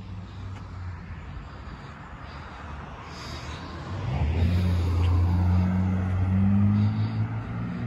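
A car passing on the road close by, its engine hum and tyre noise swelling about halfway through.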